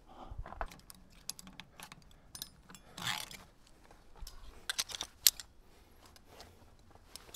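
Irregular light clicks and small clinks, with a brief rustle about three seconds in.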